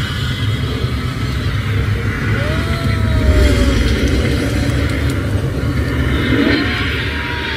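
Steady low rumble and rushing from a river-cruise ride's boat and its fire-and-water show effects, with gas flames bursting up around churning water. A couple of faint sliding tones sound about two seconds in and again near the end.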